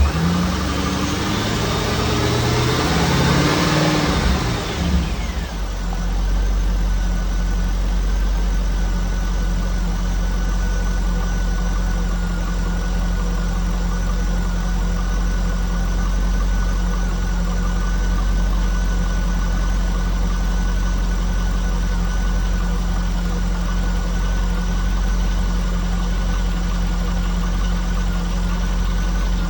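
Car engine revved up and down for the first few seconds, then settling to a steady idle with a steady high tone over it. The owner asks whether the engine's noise comes from bad lifters or from piston slap.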